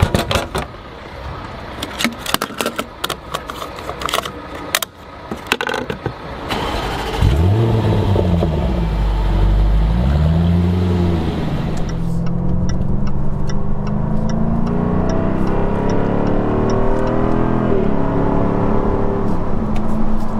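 Clicks and knocks of a fuel pump nozzle being handled, then the Jaguar F-Type R's 5.0-litre supercharged V8 starts at about seven seconds with a loud rev flare that rises and falls back to a steady idle. From about twelve seconds the V8 is heard from inside the cabin, accelerating, its pitch climbing in several steps as it shifts up through the gears.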